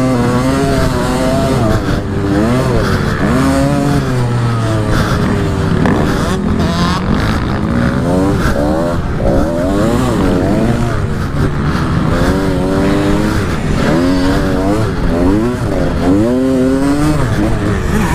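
125 cc two-stroke dirt bike engine revving hard and falling back over and over as the rider twists and closes the throttle and shifts gears around a motocross track. Its pitch climbs in quick sweeps, about once or twice a second, and drops between them.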